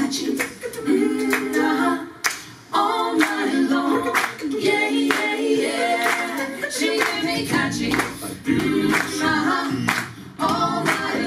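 Mixed-voice a cappella quartet, two women and two men, singing in close harmony, with hand claps.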